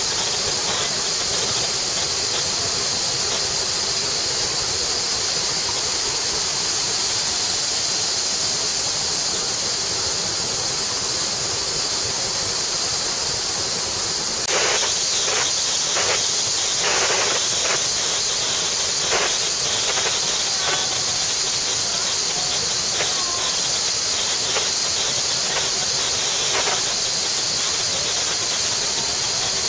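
Waterfall cascading in a steady, loud rush. About halfway through, it turns brighter and hissier, with brief surges.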